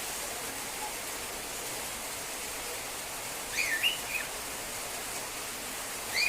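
Female cockatiel calling while left alone: one short warbling chirp that rises and falls about halfway through, and a brief rising chirp at the very end, over a steady hiss.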